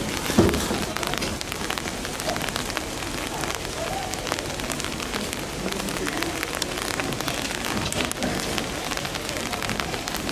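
Steady rain falling on hard surfaces, with many separate drops ticking through the hiss. A short, louder sound stands out about half a second in.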